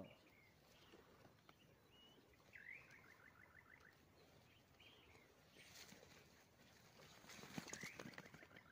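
Near silence with a few faint bird-like chirps and calls. In the second half come light rustling and clicking as the wire-mesh trap is handled.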